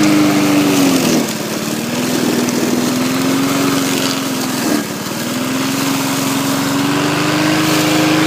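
Pull-start petrol lawn mower engine running, its revs dropping sharply under load about a second in and again near the middle, then slowly picking back up each time: the engine bogging as it cuts through rough, heavy ground.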